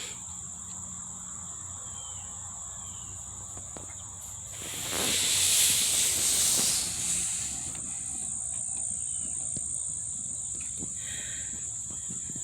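Insects trilling steadily in one high thin tone, with a loud hissing rush of noise that swells and fades over about three seconds in the middle.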